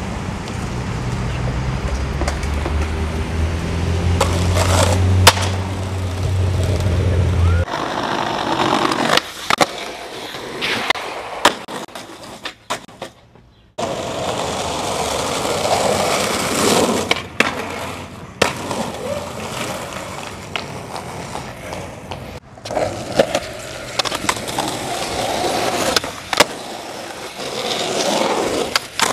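Skateboard wheels rolling on concrete, broken by sharp clacks of the board popping and landing. A steady low hum runs under the first part, and the sound changes abruptly a few times.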